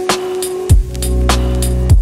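Background music with an electronic beat: deep kick drums dropping in pitch, a held bass note and crisp high ticks.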